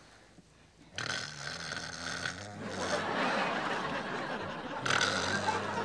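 A man snoring loudly in his sleep: a long snore starting about a second in, a noisy breath, then another long snore near the end.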